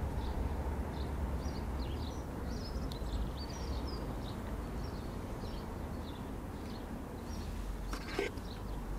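Small birds chirping again and again in the background over a steady low rumble, with a brief click about eight seconds in.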